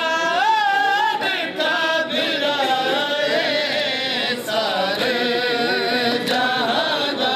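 A single male voice chanting a noha, a mourning lament, in long wavering phrases. Sharp slaps of hands striking bare chests in matam land every half second to a second.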